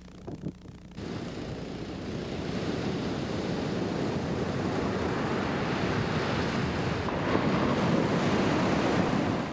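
Ocean surf breaking and washing up the beach: a steady rushing that builds over the first few seconds and swells slightly near the end. A few brief clicks come just before it starts.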